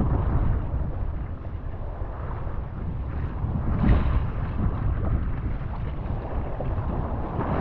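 Wind buffeting the microphone over the rushing and splashing of choppy water along a kayak's hull as it is paddled through waves, with a louder surge about four seconds in.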